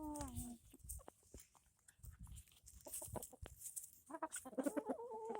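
Chickens clucking while they peck at food scraps. A falling call ends about half a second in, light taps are scattered through the middle, and a longer wavering cluck starts about four seconds in.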